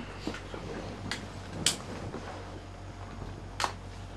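Quiet room tone with a steady low hum, broken by three short clicks, the loudest about a third of the way in.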